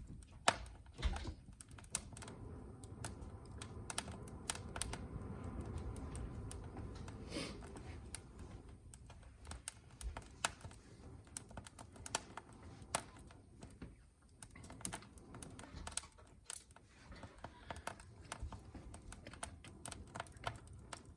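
Wood fire of cherry and Osage orange logs burning in a fireplace grate, with faint, irregular crackles and sharp pops over a low rush of flame.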